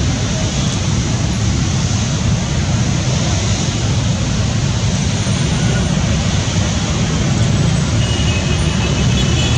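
Jet airliner engines running with a steady, loud roar, a thin high whine joining near the end.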